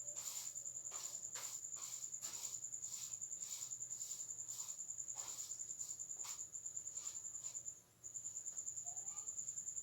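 A cricket trilling, a steady high-pitched pulsing that stops for a moment near the end and starts again, with scattered faint knocks or rustles.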